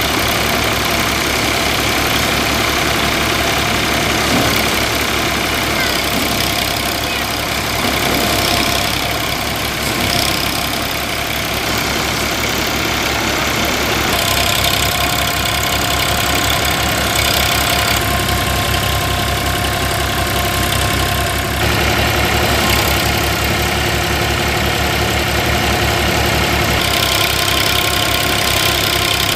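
Massey Ferguson 5245 tractor's diesel engine running steadily under load as it drives a Dashmesh paddy thresher, with the thresher's drum giving a steady whine and the rush of paddy straw being fed in and threshed. The sound changes abruptly twice, near the middle and about two-thirds through.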